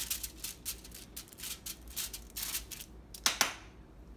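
Hands pressing and patting dough flat on aluminium foil, the foil crinkling in quick little crackles. Near the end come two sharp clinks of a metal spoon.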